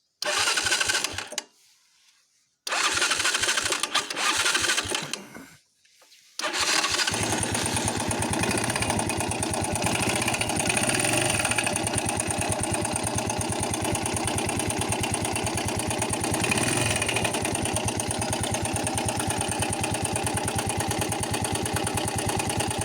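Viper 125J motorcycle's single-cylinder engine cranked in two short tries, catching on the third about six seconds in and then running steadily with a rapid rattling knock. The owner suspects the camshaft or a failed camshaft bearing.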